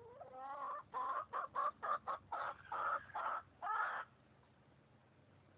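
Chicken clucking loudly: a rising call, then a quick run of about nine short, pitched clucks, roughly three a second, that stops about four seconds in.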